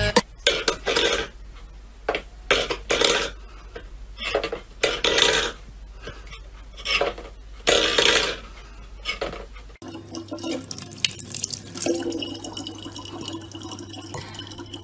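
Metal pet bowl clattering and scraping on a wooden floor in a string of short bursts. About ten seconds in, a quieter steady hum with faint trickling tap water follows.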